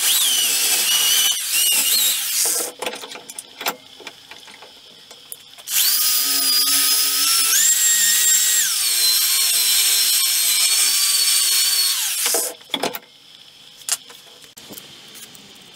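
Electric drill spinning a wire wheel brush against the threads of a rusty bolt on the bandsaw frame. It runs twice: a short run at the start, then a longer one from about six seconds in. In the longer run its whine steps up in pitch for about a second before dropping back, then it stops.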